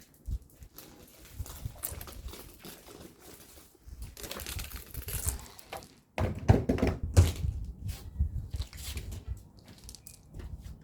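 Irregular knocks, thuds and clatter with rustling, as of things being handled and set down, busiest and loudest in the second half.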